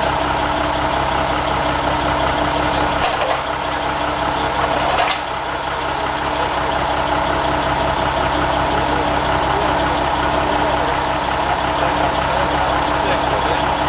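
Heavy diesel engine running steadily at constant speed, with a slight drop in level about five seconds in.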